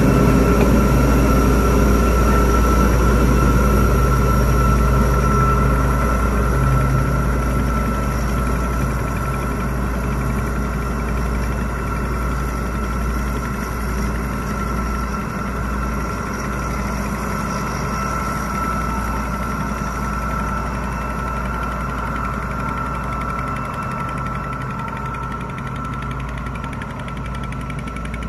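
Diesel locomotive D11H-357's engine running steadily with a deep rumble and a steady high whine, fading gradually as the locomotive moves away.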